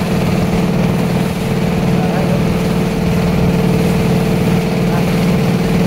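Klotok, a motorized river boat, with its engine running at a steady, even pitch.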